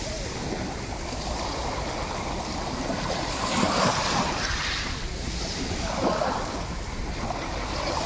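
Small sea waves breaking and washing up over a pebble beach, swelling and falling back a few times, loudest about four seconds in. Wind rumbles on the microphone underneath.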